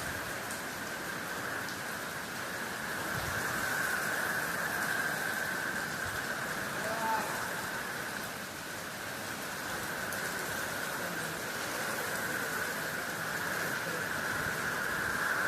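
Steady rain falling on a roof, an even hiss of drops with a constant high-pitched drone running through it. A brief chirp sounds about halfway through.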